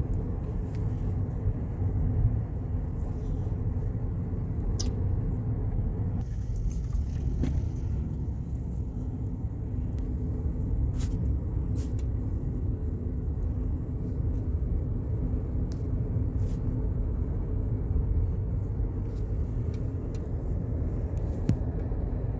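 Steady low road and engine rumble inside a moving vehicle's cabin, with a faint steady hum over it and a few faint ticks.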